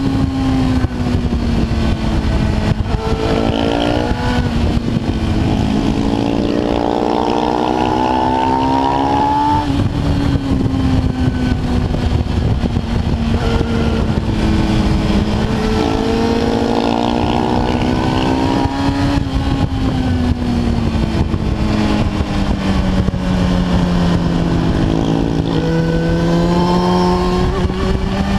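Kawasaki ZX-10R's inline-four engine running hard at road speed, heard from onboard over heavy wind rush on the microphone. The engine note sags and climbs gently, with several stretches of rising pitch as the throttle is opened.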